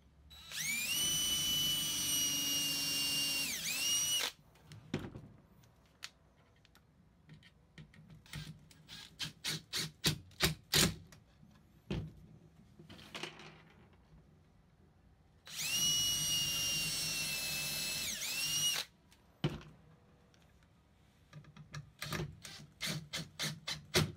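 Cordless drill boring pilot holes into the plywood drawer panels: two steady whines of a few seconds each, rising in pitch as it spins up and dipping as it stops. Between and after them, a Makita cordless impact driver drives screws in quick runs of short, sharp knocks.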